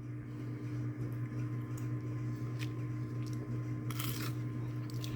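Steady low electrical hum with faint room noise, a few light clicks, and a short rustle about four seconds in.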